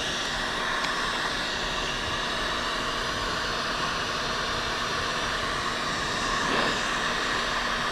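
Thermal air circulator (hot-air heating tool) blowing with a steady hiss, running at the adhesive of the iPad's glass, slightly louder about six and a half seconds in.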